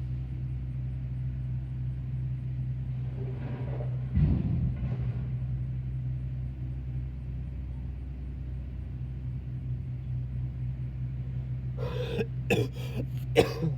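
A person coughing in a quick series of short coughs near the end, over a steady low outdoor rumble, with a single low thump about four seconds in.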